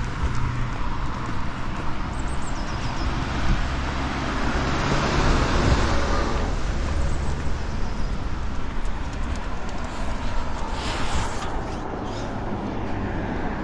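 Street traffic: a steady low engine rumble, with a vehicle passing about five to six seconds in.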